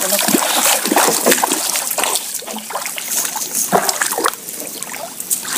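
Water trickling and splashing off a cast net as it is lifted out of shallow water. It is loudest in the first two seconds, then thins to scattered drips and splashes.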